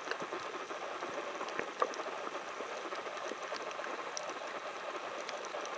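Steady underwater crackling heard with the microphone submerged, dotted with faint scattered clicks and one sharper click a little under two seconds in.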